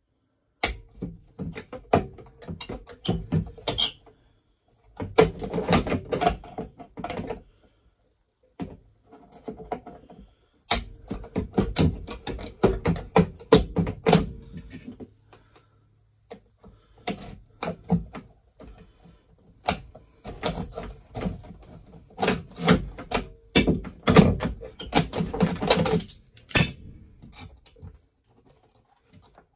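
Bursts of rapid metal clanking, rattling and scraping as a metal door threshold piece, which is thought to be riveted in, is wrenched and worked loose with locking pliers. The clatter comes in about four or five runs of several seconds each, with short pauses between.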